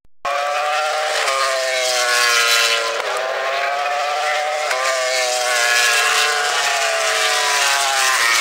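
MotoGP four-stroke racing motorcycle engines running at high revs, several bikes overlapping, their pitch rising and falling with throttle and gear changes. The sound cuts in after a brief dropout at the start.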